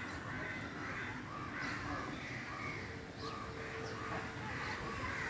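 Crows cawing repeatedly, short harsh calls about two or three a second.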